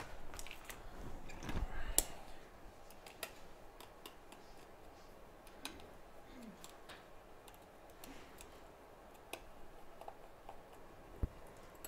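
Faint, irregular small clicks and taps of a precision screwdriver and tiny parts on an iPhone 7 being taken apart, its screws and cable connectors coming out. A few sharper clicks come about two seconds in, and a single low knock near the end.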